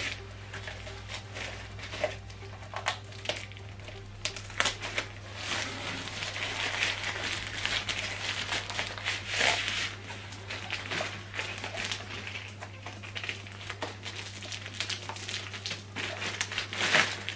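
Recycled plastic packaging film crinkling and rustling in bursts as plastic-wrapped soundbar sections are handled and a sleeve is pulled off, with scattered light taps.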